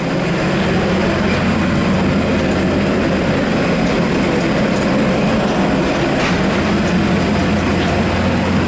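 Steady vehicle noise: a low engine and tyre rumble with an even hiss above it, holding level throughout.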